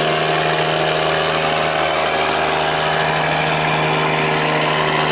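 A barge's engine running hard and steady, pushed to speed to get through the sluice gate: a loud, even drone with a constant pitch.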